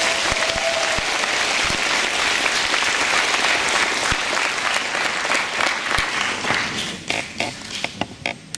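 Audience applause, dense and even at first, thinning after about seven seconds into a few scattered claps that die away near the end.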